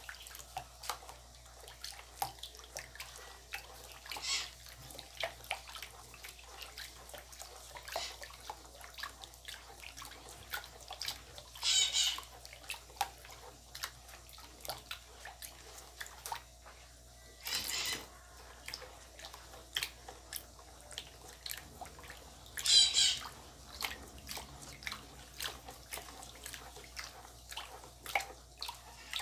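Utensil stirring a thick, saponifying homemade detergent mixture of oil and caustic soda in a plastic bowl: wet sloshing with many small clicks and taps against the bowl, as the mix is worked towards its setting point. A few louder, brief, shrill sounds stand out, about four, twelve, eighteen and twenty-three seconds in.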